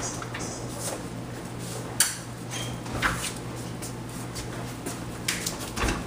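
A heavy Victory gun safe of about 700 lb on a hand truck being manoeuvred through a hallway: scattered knocks and clunks, with a sharp knock about two seconds in and a duller thump near the end, over a steady low hum.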